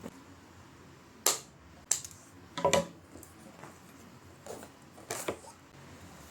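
A few sharp clicks and knocks of small objects being handled and set down, five or so over the few seconds, the loudest about a second in and near the middle.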